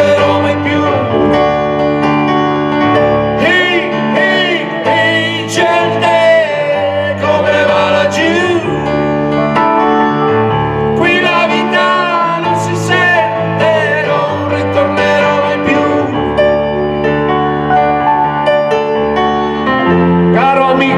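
Live music from piano and electronic keyboard playing an instrumental passage of a pop song, with held bass notes that change every second or two under a lead melody that wavers in pitch.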